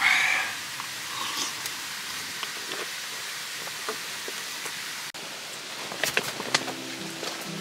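Steady rushing noise of a nearby waterfall, with a few light clicks near the end. Background music comes in over it shortly before the end.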